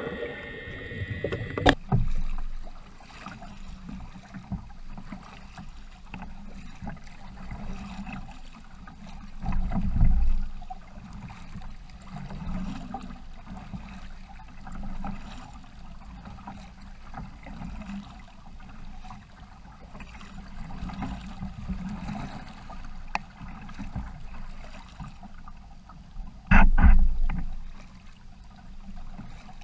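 Paddling an Ascend FS12T sit-on-top fishing kayak: the double-bladed paddle dips and pulls through calm water and water laps along the hull. A few louder low rumbles come through, with the loudest, a sharp thump, near the end.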